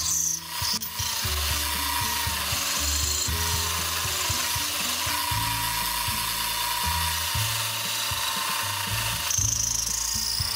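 South Bend lathe turning a wheel hub in its 3-jaw chuck while the cutting tool cuts off the hub's flange: a steady hiss of cutting that stops about nine seconds in.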